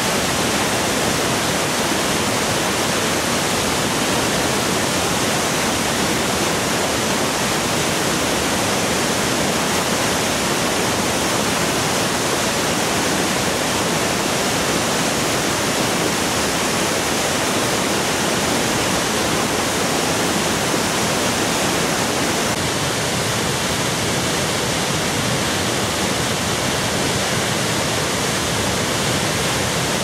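A tall waterfall with a 27-metre drop, a heavy flow of water pouring over the lip and falling onto rock, making a steady, unbroken loud rush.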